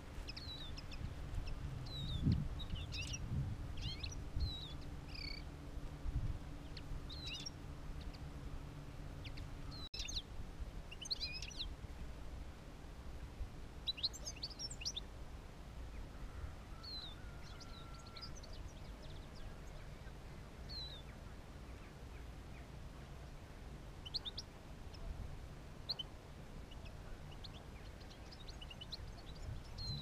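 Small finches chirping and twittering in short, scattered calls: the caged decoy goldfinches and common linnet used to lure wild birds to a clap net. A faint low hum under them stops with a click about ten seconds in.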